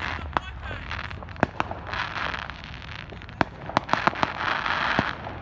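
Consumer fireworks and firecrackers going off: scattered sharp bangs, with a quick cluster of them about three and a half to four seconds in, over a steady crackling hiss.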